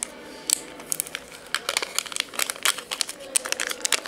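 Clear plastic packaging of a small electronics module crinkling and crackling in irregular bursts as it is handled and opened by hand.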